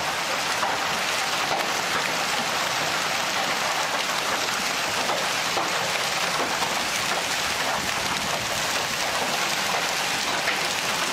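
Heavy rain and hail pouring down, a steady, even hiss.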